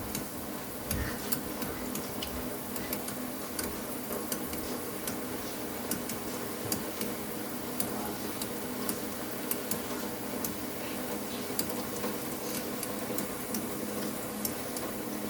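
Irregular small metallic clicks and scrapes of a tool working a plumbing fitting as it is tightened to stop a leak, over a steady low hum.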